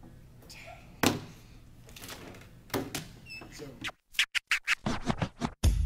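A sharp knock about a second in and a few brief voice sounds, then, about four seconds in, a quick run of DJ record scratches that leads into music.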